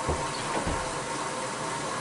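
Bosch WAB28220 washing machine at the start of its quick wash cycle, with a steady hiss of water running into the drum. Two low thumps come in the first second.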